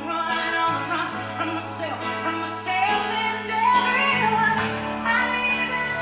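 Music with a singing voice over held bass notes that change a couple of times.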